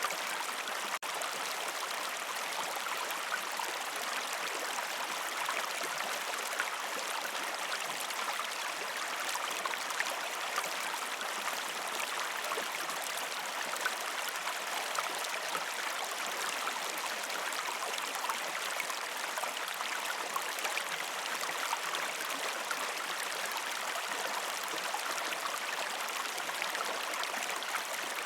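River stream water flowing over rocks, a steady rushing and babbling with no change in level, broken only by a momentary dropout about a second in.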